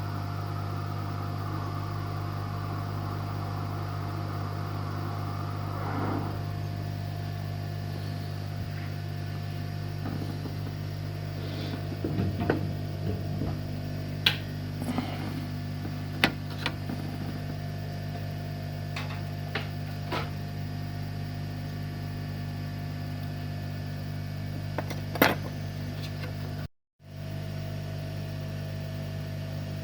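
Steady electrical hum from running bench equipment, with scattered light clicks and taps of small tools during circuit-board rework.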